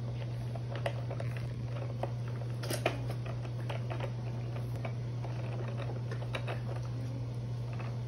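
Light, irregular clicks and taps on the plastic tray and toys of a baby walker, the sharpest about three seconds in, over a steady low hum.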